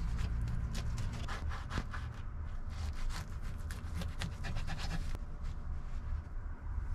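A knife sawing back and forth through two burgers and their sesame buns, a run of short rasping strokes that thins out after about five seconds.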